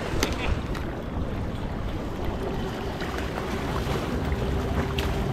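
Wind buffeting the microphone over choppy river water slapping against a kayak, a steady rush, with a few sharp clicks near the start and a faint steady hum from about halfway in.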